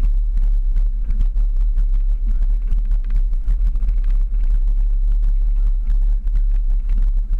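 Jeep driving up a rough dirt trail, heard from on board: a steady heavy low rumble with frequent short knocks and rattles as it goes over the bumpy ground.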